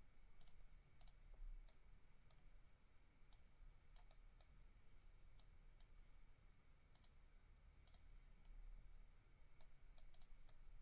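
Faint, scattered clicks of a computer mouse and keyboard, about a dozen at uneven intervals, over a quiet steady room hum.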